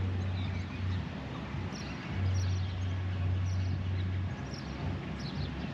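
Small birds chirping now and then over a steady low rumble, which is strongest for a couple of seconds in the middle and then eases.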